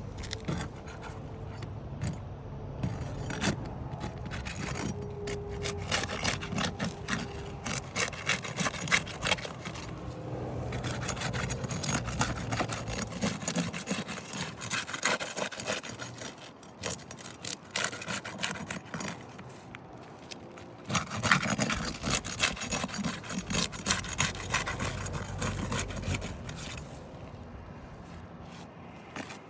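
Roof snake shingle-removal bar scraping and prying under asphalt shingles to break the tar seal strips loose, with a rough rasping and crackling in bouts and short pauses between.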